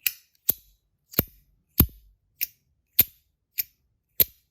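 Compoform V1.1 Mini fidget's plates clicking as they are fidgeted: about eight sharp, separate snaps, roughly one every half second or so.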